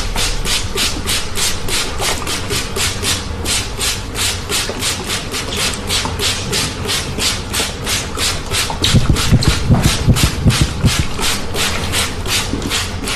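Water spray bottle squirted over and over in quick hissing pulses, about three to four a second, misting a customer's hair. About nine seconds in, a couple of seconds of low thudding join it.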